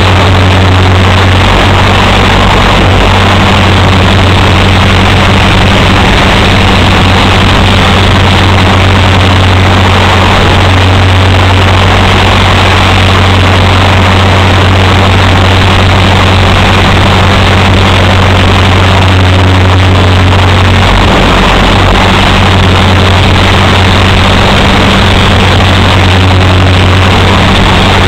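Align T-Rex 450 electric RC helicopter heard from its onboard camera: a loud, steady drone of the rotor and motor with a constant low hum.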